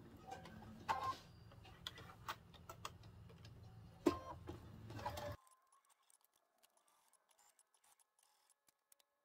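Domestic sewing machine stitching slowly: a low steady motor hum under irregular needle clicks, with a couple of louder clicks. It stops abruptly about five seconds in, leaving only faint light ticks.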